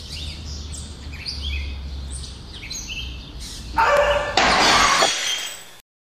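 Sound effects for an animated production-company logo: a run of short falling chirps over a low rumble, then two loud crashing hits about half a second apart that ring on and cut off abruptly.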